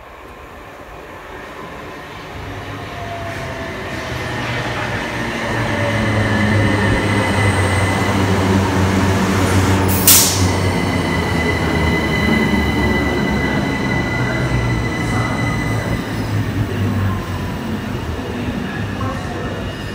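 Southern Class 377 Electrostar electric train running past, growing steadily louder over the first six seconds and then staying loud, with a steady high whine over the rumble. A short, sharp burst of noise comes about ten seconds in.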